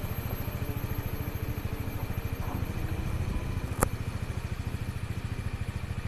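Small motor scooter engine idling close by, a steady rapid low putter, with one sharp click a little before four seconds in.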